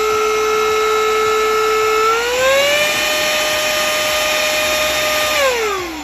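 CAFELE cordless handheld car vacuum's motor running with a steady whine on low suction, stepping up in pitch about two seconds in as it switches to high suction, then winding down near the end as it is switched off.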